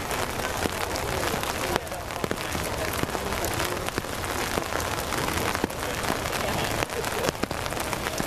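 Steady rain falling, with many small, sharp drop ticks through a constant hiss.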